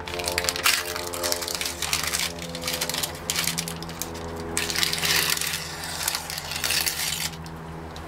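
Paper wrapping on a sugar candy block crinkling and tearing as hands work at it, until a second or so before the end, over a steady low hum.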